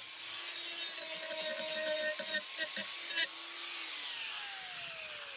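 Handheld electric grinder with a sanding disc grinding the painted surface of a carved wooden sign, a steady high hiss over the motor's whine. About four seconds in, the tool is lifted off and its pitch falls steadily as the motor winds down.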